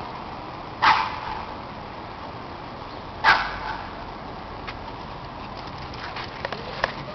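A dog barking twice during play, two short sharp barks about two and a half seconds apart.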